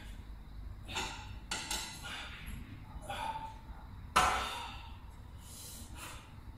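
Strained breathing and forceful exhales in time with barbell decline bench press reps, and a sharp metallic clank from the loaded barbell about four seconds in.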